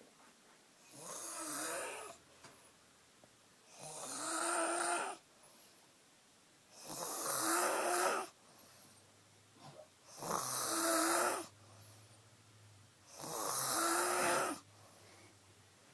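A woman passed out drunk, snoring loud: five long snores about three seconds apart, each a pitched drone with a hiss of breath, separated by quiet pauses.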